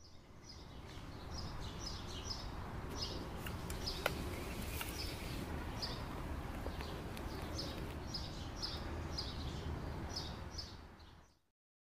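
Small birds chirping in short repeated calls over a steady outdoor background hiss, with one sharp click about four seconds in; the sound fades out near the end.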